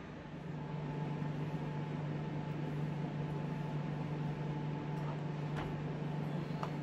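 Steady low machine hum with an even hiss, the running of a room appliance or ventilation unit, with a few faint ticks in the second half.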